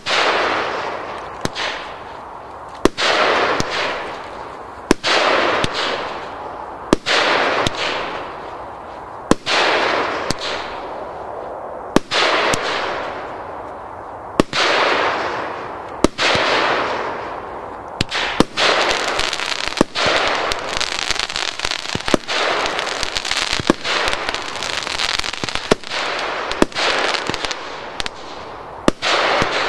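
Brothers Pyrotechnics Diamond Princess firework cake firing shot after shot, about one every one to two seconds: each a sharp bang followed by a hiss that dies away. Later on the shots come closer together and the hiss runs on with little break.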